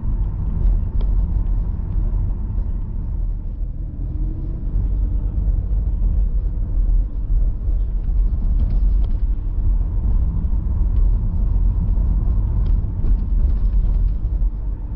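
A car's engine and tyre noise, heard from inside the cabin while it drives on city streets: a steady low rumble.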